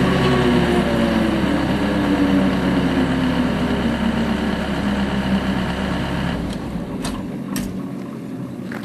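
Skid steer loader with a hydraulic swing boom mower, the machine's whine falling slowly in pitch as the mower spools down; about six seconds in, the low hum drops away and the sound grows fainter.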